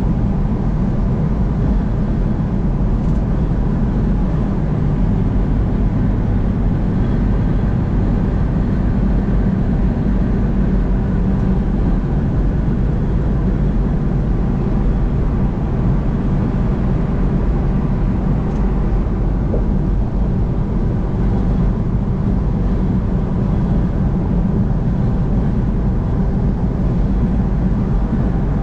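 Car travelling at highway speed: a steady drone of engine and tyre road noise, with no change through the stretch.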